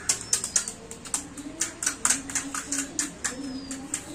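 Crisp crunching and clicking of panipuri shells being bitten and chewed, irregular sharp crunches several times a second.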